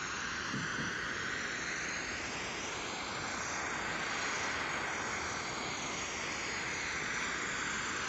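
Steady rainforest ambience: an even, unbroken hiss with no distinct calls standing out.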